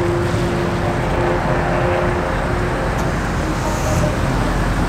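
Engine of a lowered Chevrolet Silverado pickup running steadily as the truck rolls slowly through a parking lot.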